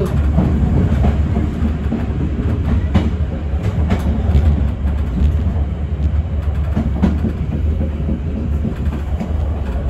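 Passenger train coach running along the track: a steady low rumble with a few sharp clacks from the wheels on the rails.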